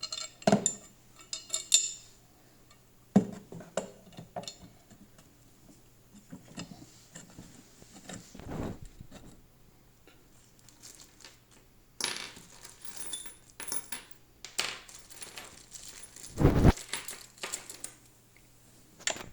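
Small metal bolts and tools clinking and rattling while a leg is bolted onto a garden branch shredder's frame, with scattered knocks and one heavier thump near the end.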